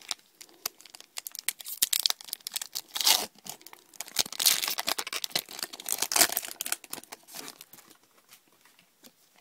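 Foil wrapper of a Pokémon TCG booster pack crinkling and tearing as it is opened by hand: a rapid run of crackles with louder rips around 2, 3, 4.5 and 6 seconds in, dying down near the end.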